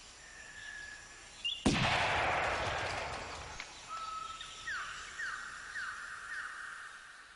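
A single gunshot about one and a half seconds in, echoing and slowly fading through the jungle, among whistled bird calls. Near the end a bird gives a run of about five quick falling notes.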